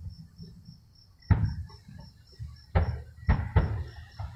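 Fireworks going off at a distance: a sharp boom about a second in, then several more in quick succession near the end, each trailing off briefly.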